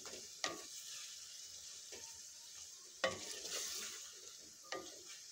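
Chicken pieces frying with garlic in oil in a metal pot, a soft sizzle, while a spatula stirs them. The spatula knocks against the pot about four times, loudest about three seconds in.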